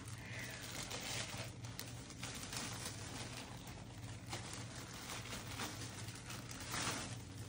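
Faint rustling and crinkling of a plastic shipping bag being handled and set down, over a steady low hum.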